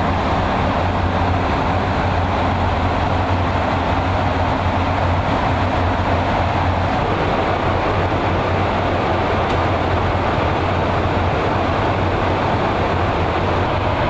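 Steady, loud cabin noise inside a KC-135 Stratotanker in flight: the constant drone of engines and airflow through the fuselage, with a strong low hum underneath.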